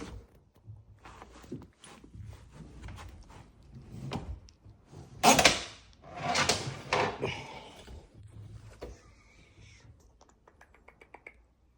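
Knocks, clunks and scraping from hands working the boat's steering cable, with a loud clunk about five seconds in followed by a longer scrape.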